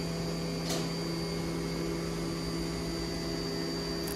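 Steady low machine hum with a faint high whine, broken by two short sharp noises, one under a second in and one near the end.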